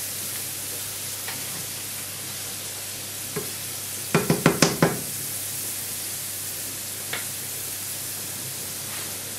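Small cubes of celeriac frying in oil in a pan: a steady sizzle. About four seconds in, a quick run of about six knocks from the wooden spoon against the pan.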